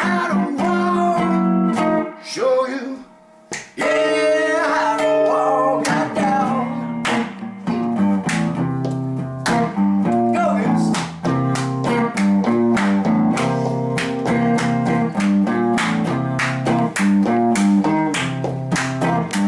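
Electric guitar strummed in a steady rhythm of chords, breaking off briefly about two seconds in before picking up again. A singing voice holds a wavering note a few seconds in.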